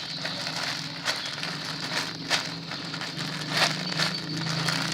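Irregular crackling and rustling of squishy toys being picked up and handled, with many small clicks, over a low steady hum.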